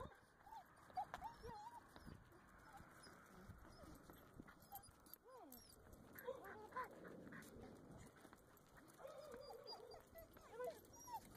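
Dog whining faintly in short rising-and-falling whines, several in a row near the middle and again near the end. There is a sharp click about a second in.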